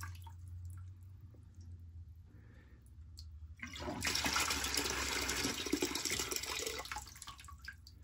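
Boiler water running out of the blowdown drain of a McDonnell & Miller No. 67 float-type low-water cut-off, through a pipe into a plastic bucket, flushing sediment out of the float chamber. The flow is light at first, grows louder about four seconds in, and eases off near the end.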